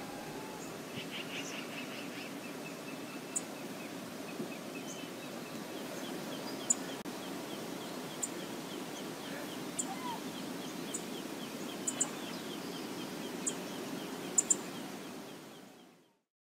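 Steady low rush of river water, with a bird calling in a rapid row of short high notes and scattered sharp high ticks. It all fades out near the end.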